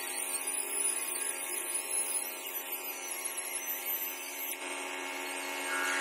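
Handheld electric stone polisher with a pad running steadily against the edge of a granite sink cutout, giving a continuous motor whine.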